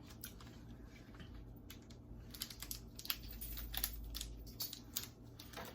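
Faint crinkling and irregular small clicks of a snack package's wrapper being worked open by hand.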